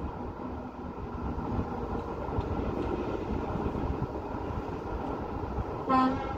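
Steady hum of road traffic, with one short horn toot near the end.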